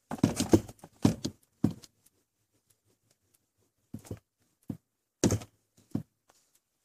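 Irregular thuds and knocks from a car's footwell as a sneakered foot pumps the pedals: a quick cluster at the start, a pause, then four more single thumps. No engine is running or cranking.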